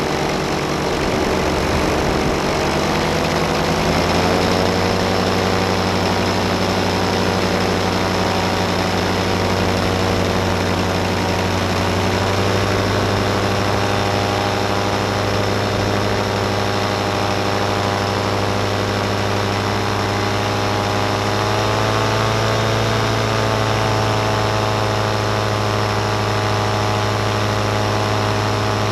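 Powered paraglider's engine and propeller running in flight, speeding up a few seconds in and then holding a steady drone, with a slight further rise in pitch around twenty seconds in.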